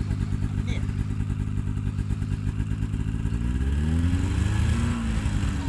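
Ski-Doo GTX snowmobile engine idling with a fast, even pulse, then revving up about three and a half seconds in and easing off again as the sled starts to move off through the snow.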